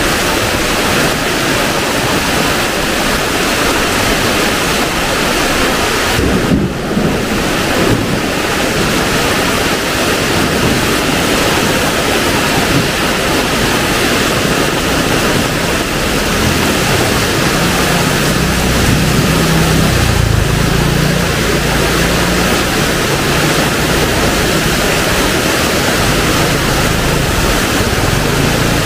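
Heavy downpour: dense, steady rain noise throughout, with a low rumble for several seconds past the middle.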